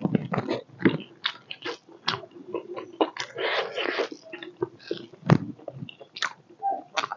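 A person biting and chewing pork leg, with wet mouth sounds and many short, irregular clicks.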